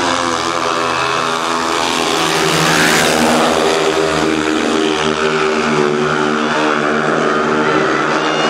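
Several 500 cc single-cylinder speedway motorcycle engines running hard together, their tones shifting in pitch as they rev; a little louder about three seconds in.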